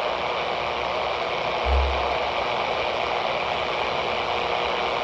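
Midland handheld CB radio with its squelch open, giving out steady static hiss with no station coming through. A brief low thump about two seconds in.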